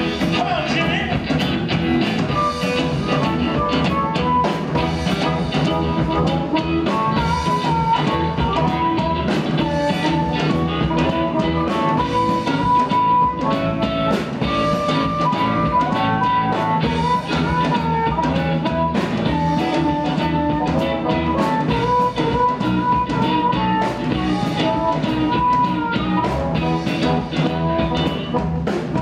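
Live electric blues band playing an instrumental passage: amplified harmonica playing a lead line of bending notes over electric guitar, bass and drum kit.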